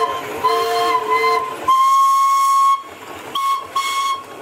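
Steam whistles blowing: a chord of several notes with a short break early on, then one long single-note blast of about a second, then two short toots near the end.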